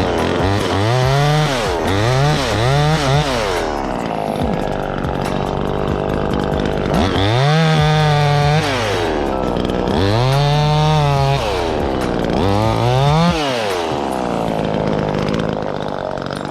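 Small two-stroke chainsaw being revved up and dropped back over and over while limbing up in a tree: a few quick blips first, then longer held full-throttle runs in the middle as it cuts. It settles back toward idle near the end.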